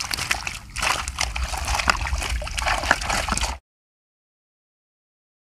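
Water sloshing and splashing in a rapid irregular run of small splashes, cutting off abruptly about three and a half seconds in, followed by silence.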